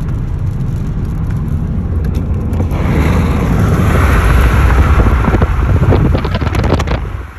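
Road and wind noise of a moving car, with wind buffeting the phone's microphone. It grows louder with a rushing hiss from about three seconds in, then drops off abruptly near the end.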